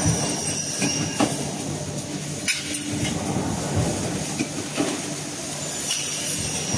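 Automatic aluminium solar-frame production line running: a steady machine hum with scattered clanks and knocks from its pneumatic stations and aluminium profiles. A faint high hiss comes near the start and again near the end.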